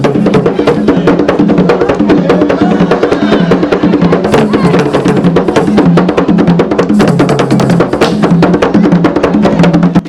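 Traditional African drum music: loud, fast, dense percussion strokes over steady low tones. It cuts off suddenly at the end.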